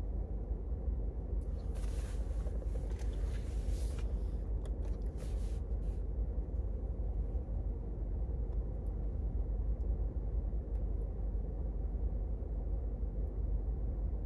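Steady low rumble inside a car's cabin, with soft hissing puffs and faint clicks in the first few seconds as a tobacco pipe is lit with a lighter and drawn on to get it going.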